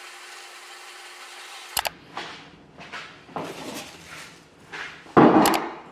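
A faint steady room hum, then a couple of clicks and a series of short swishing wipes of a cloth over a kitchen sink and counter, with one louder, longer swish near the end.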